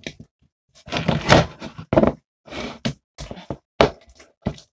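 Hands kneading and stretching sticky slime right next to the microphone: a quick, irregular run of squishes, rubs and knocks.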